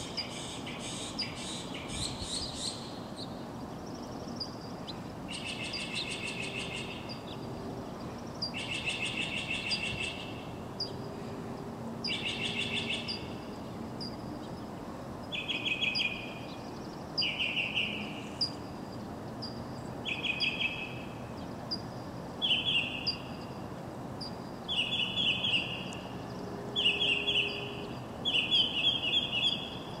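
Songbirds singing at dawn: short, rapid trilled phrases repeated every two to three seconds, coming faster near the end, over a steady low hum of city background.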